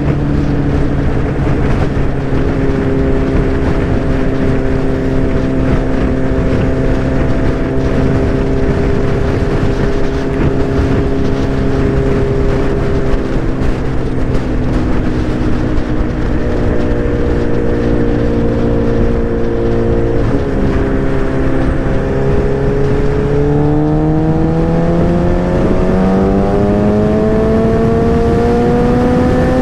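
Motorcycle engine running at a steady cruise, heard with rushing wind, then climbing steadily in pitch through the last several seconds as the bike accelerates.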